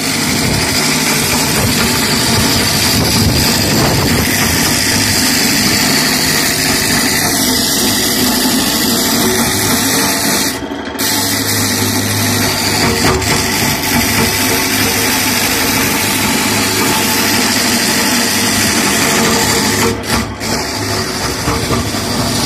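Electric walk-behind floor grinding machine running steadily as it is pushed across a concrete roof slab: a loud, continuous grinding noise over a low motor hum. The sound dips briefly about halfway through and again near the end.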